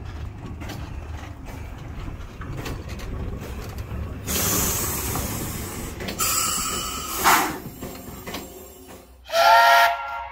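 A 1953 Bagnall narrow-gauge steam locomotive letting off two loud spells of hissing steam, then a short, loud blast of its steam whistle near the end as it departs.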